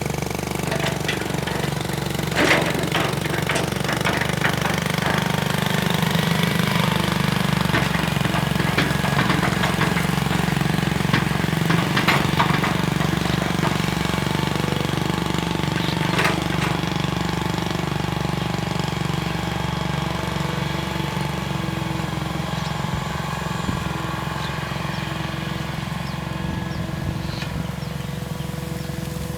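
Hitachi EX220-1 long-reach excavator's diesel engine running steadily under working load, with a few sharp knocks and clatters, the loudest about two and a half seconds in and others around twelve and sixteen seconds in.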